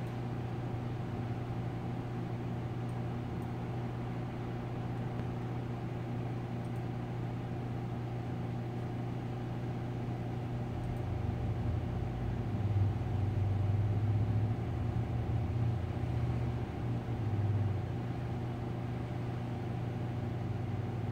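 Steady low mechanical hum, with a deeper rumble that swells for several seconds about halfway through and then fades back.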